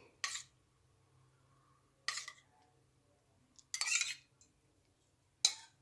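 A spoon clinking and scraping against a bowl four times, about every second and a half, as spoonfuls of curd are added.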